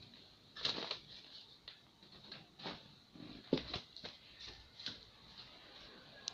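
Handling noise from a phone held close to its microphone: irregular soft taps, clicks and rustles of fingers and hand on the device.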